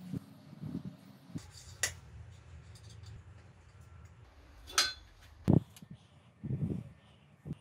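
Metal tools clinking and knocking against a motorcycle wheel and tyre changer during a tyre change. There are scattered sharp clinks, one just before five seconds in ringing briefly, and a heavy dull thud right after it, with softer low knocks around it.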